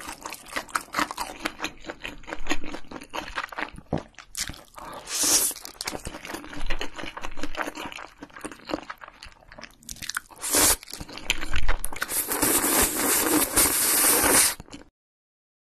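Close-miked eating: wet chewing with many small crackly mouth clicks, and noodles slurped in with chopsticks. There are longer slurps in the middle and a long one near the end, then the sound cuts off suddenly.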